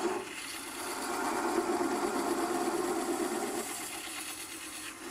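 Wood lathe running steadily, spinning a small yew vase between centres, with a thin tool held against the base where the tenon was snapped off, cutting lightly at the spinning wood.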